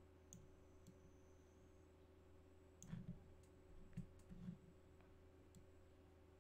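Faint computer mouse clicks, scattered through, with a few soft low knocks about three and four seconds in, over a steady low hum.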